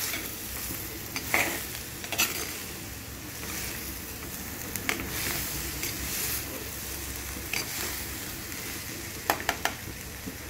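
Vegetables sizzling in oil in an earthenware clay pot as they are stirred with a spoon, the spoon clicking and scraping against the pot now and then, three quick clicks near the end.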